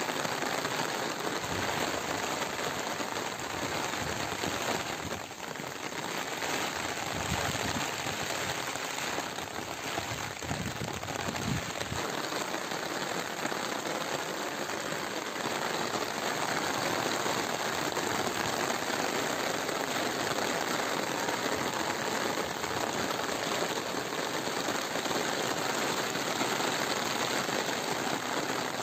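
Steady rain falling on a concrete rooftop terrace and its plant pots.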